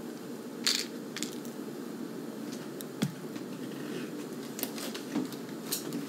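A few light, scattered clicks and taps over a steady low room hum, the sharpest about three seconds in.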